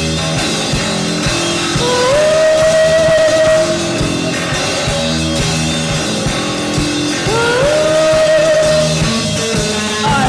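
Goth rock band playing over a steady drum-kit beat. Twice, a lead part slides upward into a long held note.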